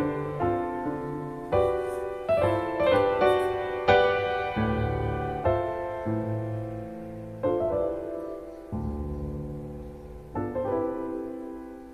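Background piano music: notes and chords struck one after another and left to fade.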